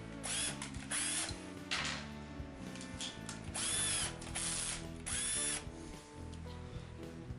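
Power drill-driver running in about five short bursts, its motor pitch rising and falling with each, as it drives screws into the truck.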